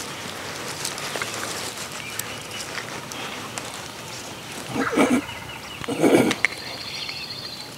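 A wild turkey gobbler on the roost gobbling twice, about a second apart, over the chirping of small birds.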